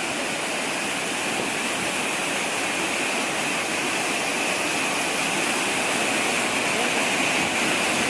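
Large waterfall in full flow, heavy water pouring down a rock face: a steady rushing noise.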